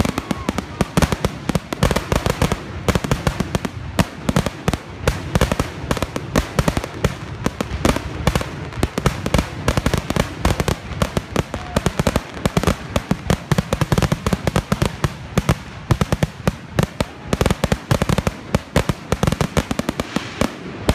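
Aerial fireworks going off in quick succession: a dense, continuous run of sharp bangs and crackles, several per second.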